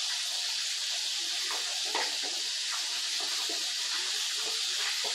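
A steady hiss, with a few faint light knocks in its middle.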